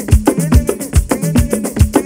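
Upbeat music with a fast, steady percussive beat and melodic instruments.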